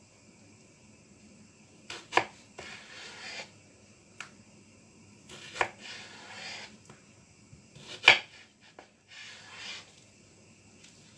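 Kitchen knife cutting food into strips on a cutting board: three sharp knocks of the blade on the board, each followed by about a second of rasping slicing strokes.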